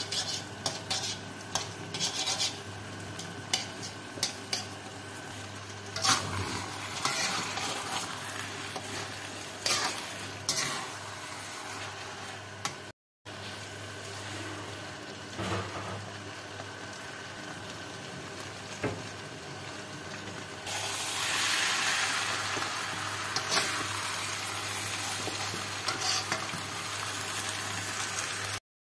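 Metal spatula scraping and clinking against a wok while stir-frying noodles in sauce, over a steady sizzle and a low hum. The sizzle grows louder about two-thirds of the way through.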